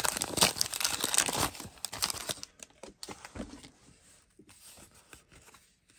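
A 1989 Donruss baseball card wax pack being torn open: the paper wrapper tears and crinkles for about the first two and a half seconds, then fainter rustling as the cards are handled.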